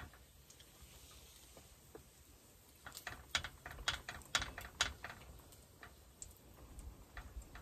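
Cooking utensil clicking and tapping against a skillet as bacon is lifted out of it: a quick run of sharp clicks about three seconds in, then a few lighter taps.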